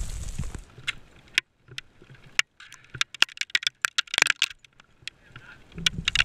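Ice axe picks striking and biting into frozen snow and ice: a run of sharp, irregular impacts, thickest in the middle. Wind rumbles on the microphone at the start and again near the end.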